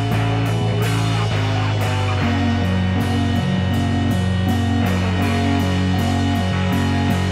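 Psychedelic desert-rock recording with electric guitars, bass, keyboards and drums. A low bass note is held throughout. From about two seconds in, a riff rocks back and forth between two notes, with regular cymbal hits on top.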